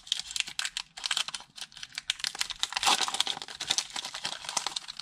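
Foil wrapper of a Pokémon TCG booster pack crinkling and tearing as it is opened by hand, a rapid, uneven run of crackles.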